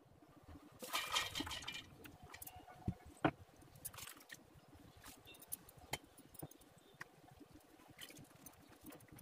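Soaked grains and lentils tipped into the steel drum of a stone wet grinder: a wet rush of grains sliding in about a second in, followed by scattered light clicks and knocks of grains and the bowl against the drum.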